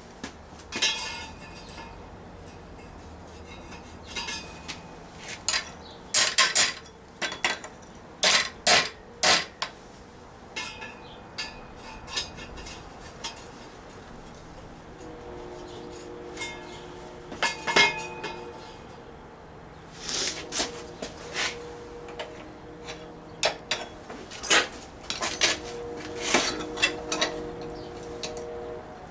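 Irregular metallic clanks and taps from metal parts and hand tools being handled and struck, some leaving a short metallic ring.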